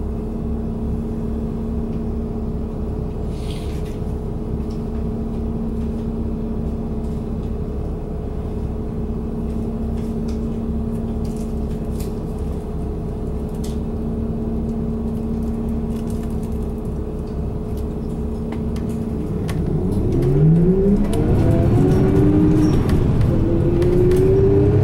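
Isuzu Erga Hybrid city bus heard from inside the cabin: its diesel engine idling with a steady hum while stopped. About 20 seconds in it pulls away, the engine and hybrid drive tones rising in pitch, climbing twice in a row as it gains speed.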